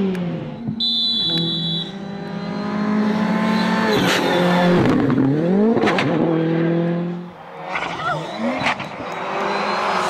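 Rally car engines revving hard on a tarmac stage as cars pass at speed. The engine note drops and climbs again with each gear change or lift, around the middle and again near the end. A few sharp cracks cut across it.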